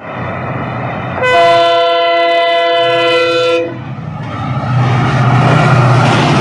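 Locomotive horn sounding one long, steady multi-tone blast of about two and a half seconds. After it, a passing passenger train's running noise swells to a loud, steady rumble over the rails.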